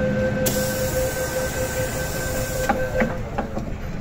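MTR M-train door-closing warning tone sounding steadily, with a hiss of air from about half a second in, then the doors knocking shut about three seconds in.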